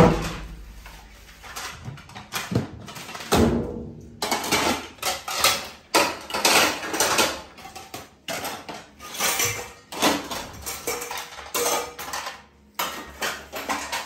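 A loud knock at the start as a plastic bowl of dishes is set down on a tiled counter, then irregular clattering and knocking throughout, with music.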